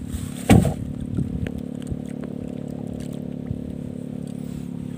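Wooden paddle stroking the water beside a small outrigger canoe, with one loud splash about half a second in and a few light knocks after it, over a steady low hum.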